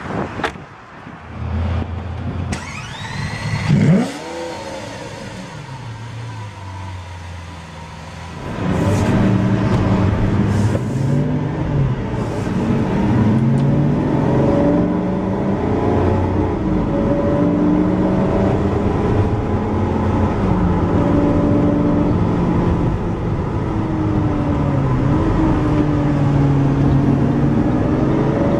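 Lamborghini Aventador LP700-4's V12 engine running: a quick rev about four seconds in, then from about eight seconds in much louder as the car accelerates, its pitch climbing and dropping repeatedly with gear changes.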